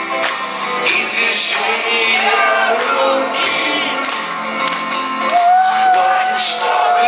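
Russian rock band playing live, recorded from among the audience. A melody line moves over the band, and about five seconds in a single note is held for about two seconds.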